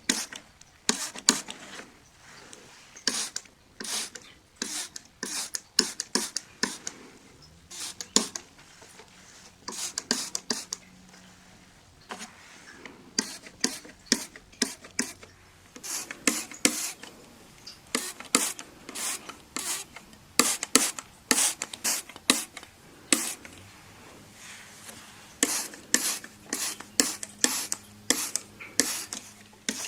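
A window pane being cleaned by hand: quick, irregular wiping strokes rubbing across the glass, coming in clusters with short pauses between.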